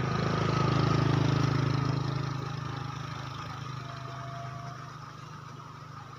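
A small engine passing by, loudest about a second in and fading away over the next few seconds.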